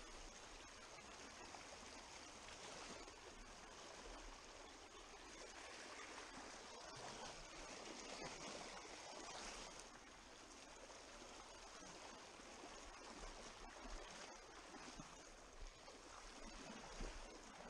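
Faint, steady rush of a shallow river flowing over rocks.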